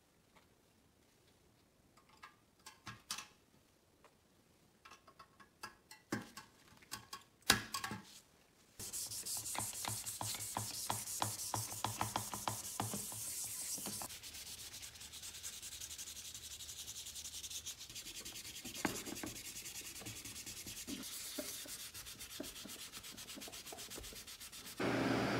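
Hand sanding a small sheet-metal toy train part: a dense, steady scratching of fast rubbing strokes, louder at first and softer after the middle, preceded by scattered light taps and clicks of the metal parts being handled. Near the end a steady fan-like rush starts.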